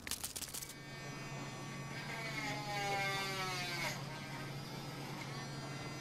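A small corded handheld rotary tool whirring steadily at a high speed, its pitch shifting between about two and four seconds in as it works on an acorn shell. It is preceded by brief crackling of dry leaves.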